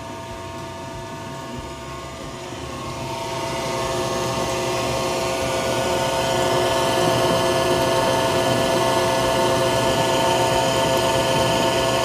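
Frigidaire dishwasher's failing pump motor running with a loud, steady grinding noise that grows louder over the first few seconds and then holds. The grinding is the sign of the bad pump motor, which had to be replaced.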